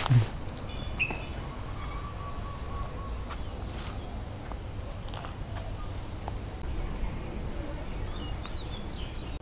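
Outdoor ambience with a steady low rumble and scattered bird chirps: a few short calls about a second in, a thin held note shortly after, and small rising-and-falling chirps near the end. A single short thump sounds at the very start.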